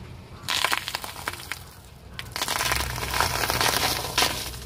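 Car tyre rolling over a row of crunchy orange puffed snack sticks, crushing them with a dense crackling crunch in two spells: about half a second in, and again from about two seconds in until near the end. A low rumble runs underneath.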